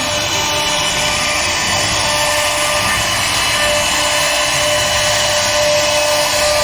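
CNC wood router's spindle running and cutting wood, a steady whine over an even rushing noise.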